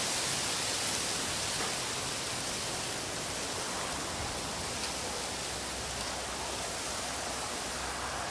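Strong wind blowing through bamboo foliage, a steady rushing, hissing noise with no let-up.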